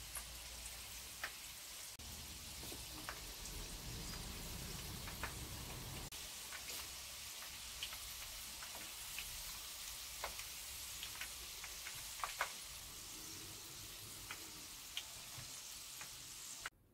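Breaded tuna-and-egg dough balls deep-frying in plenty of extra virgin olive oil: a steady sizzle with scattered sharp pops and crackles, cutting off suddenly near the end.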